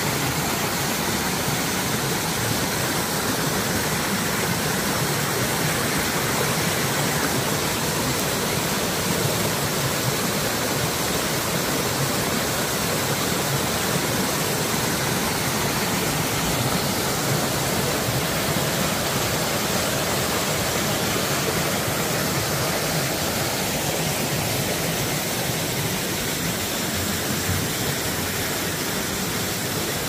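Mountain stream running high: a steady, loud rush of water cascading down the valley.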